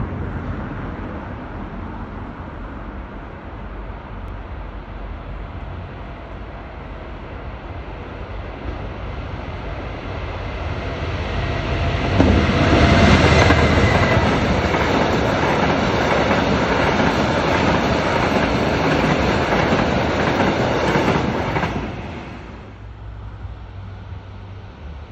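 A Class 66 diesel locomotive hauling loaded hopper wagons approaches and passes close by, engine running and wheels rolling on the rails, building slowly and loudest for about ten seconds in the middle. Near the end the sound cuts off sharply to the quieter sound of a more distant train.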